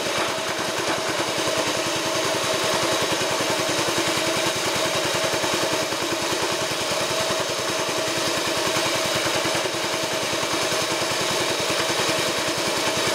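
Small stationary petrol engine running steadily, belt-driving a Ford car air-conditioning compressor. A steady tone rides over the engine's rapid, even firing.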